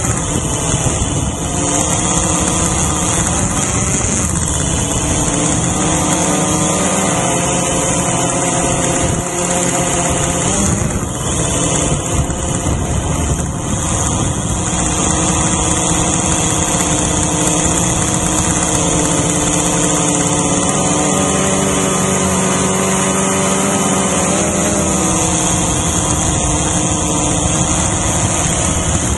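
Small quadcopter drone's electric motors and propellers buzzing close to the onboard microphone, a steady whine with a hiss over it, its pitch shifting now and then as the drone manoeuvres.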